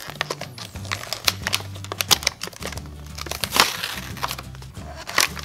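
Clear plastic blister packaging crinkling and crackling as it is bent and pulled open to free a die-cast toy car, many sharp crackles in quick succession, over low background music.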